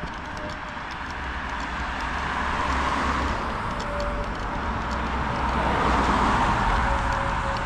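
Cars passing on the road. One swells up and fades about three seconds in, and another passes about six seconds in.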